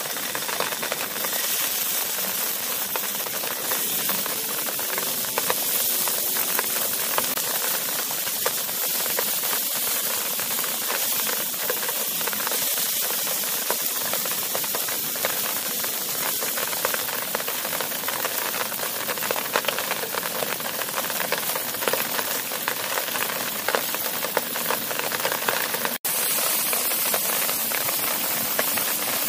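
Cubes of marbled beef sizzling in hot oil in a cast-iron skillet: a steady hiss with dense fine crackling.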